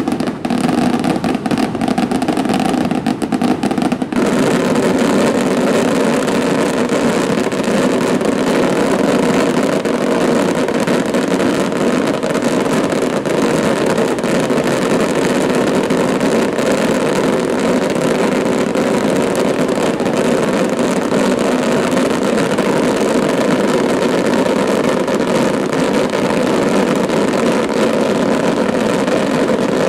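A dense daytime firework barrage: many firecrackers going off in one continuous rapid crackle that thickens about four seconds in and keeps up without a break.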